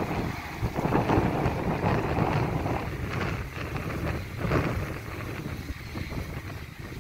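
Wind buffeting the microphone in uneven gusts, easing off near the end.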